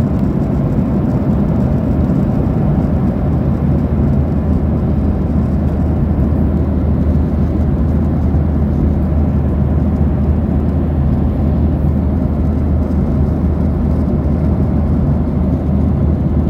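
Airplane cabin noise in flight: a steady, loud low rumble of the engines and rushing air, heard from inside the cabin.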